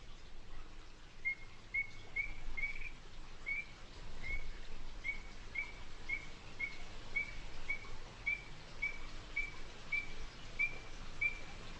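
Recording of Strecker's chorus frogs calling: a steady series of short, clear whistled notes, about two a second, over a faint background hiss.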